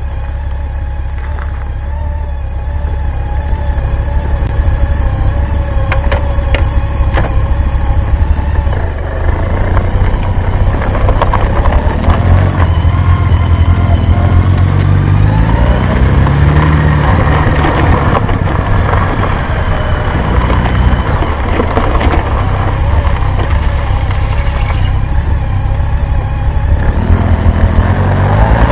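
Honda Gold Wing GL1800's flat-six engine idling steadily, then pulling away and accelerating, its pitch rising in sweeps through the gears. Road and wind noise grows as it gathers speed.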